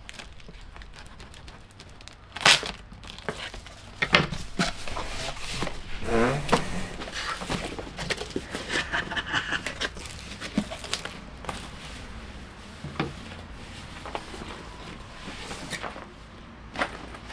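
Large cardboard box being opened and unpacked: cardboard and plastic packaging rustling, crinkling and tearing, with several sharp knocks, the loudest about 2.5 and 4 seconds in.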